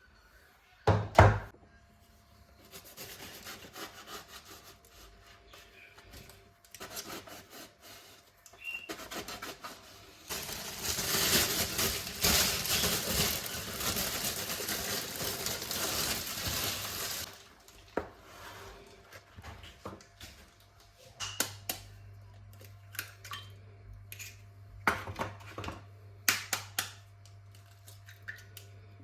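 Kitchen handling sounds: a loud knock about a second in, a noisy stretch lasting about seven seconds in the middle, then scattered clicks and knocks of dishes and utensils. A low steady hum comes on past the middle.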